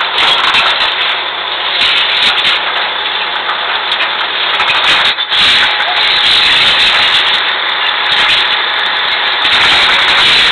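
Drilling rig floor machinery running steadily and loud: the rig's engines and floor equipment during a drill-pipe connection.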